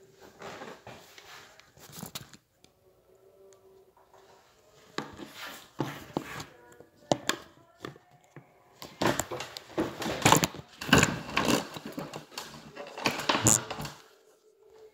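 Irregular clicks, knocks and rustling of hands working with hardware and wiring, sparse at first and busiest and loudest in the second half.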